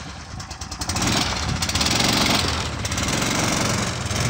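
Rostin tracked swamp vehicle's 15-horsepower Lifan engine running under load as it crawls over tundra towing a trailer, getting louder about a second in, with a rushing hiss over the middle of the run.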